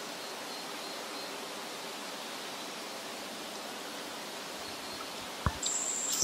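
Steady, even outdoor background hiss with no distinct source. A short click comes about five and a half seconds in, and a high steady tone starts just before the end.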